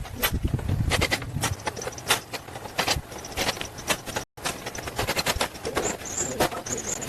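Irregular sharp clicks and knocks with some scraping, typical of work with hand tools on a vehicle. A brief dropout comes a little after four seconds in.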